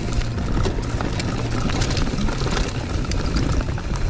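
Mountain bike rattling and clicking over a rocky trail at speed, with a steady low rumble of wind on the camera mic. The clatter includes the drivetrain of a rear derailleur ridden with its clutch switched off, which the rider blames for the gears skipping.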